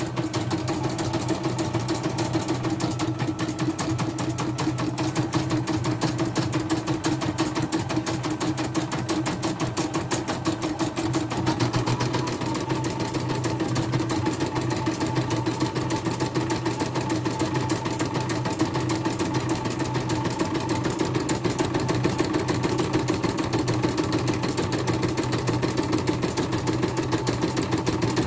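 CNY portable computerized embroidery machine stitching a design: a rapid, even clatter of needle strokes over a steady motor hum. It is running a test stitch-out after servicing, with the thread pulling normally and not jerking.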